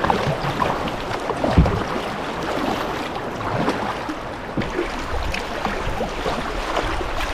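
Kayak moving down a river: water rushing and splashing around the hull, with scattered small splashes and a low thump about a second and a half in.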